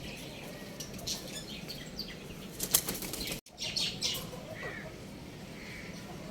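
Young rooster's wings flapping in two short bursts near the middle, followed by a faint chirp.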